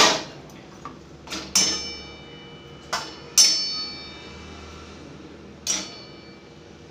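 Stainless steel utensils being handled and knocked together: about six separate clinks and clanks, several leaving a ringing metallic tone.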